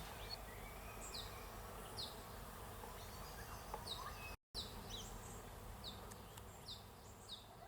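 A small animal chirping: short high chirps, each falling slightly in pitch, repeat about once every half to one second over a faint low hum. The sound drops out completely for a moment about four and a half seconds in.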